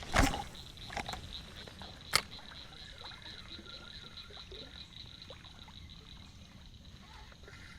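Evening chorus of insects: a high, steady chirping pulsing about five times a second, fading out about halfway through. Over it come a loud knock of gear being handled just after the start, a lighter knock about a second in, and a sharp click a little after two seconds.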